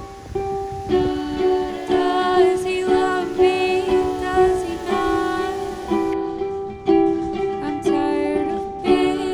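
Background music: a gentle plucked-string tune, ukulele-like, with a melody line over it.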